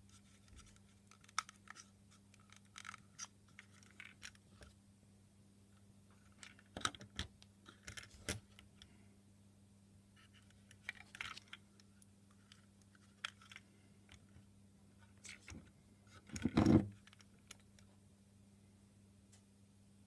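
Quiet handling noise: scattered small clicks, taps and scrapes of fingers on a small plastic model and on the phone filming it, with one louder knock about three-quarters of the way through. A faint steady low hum runs underneath.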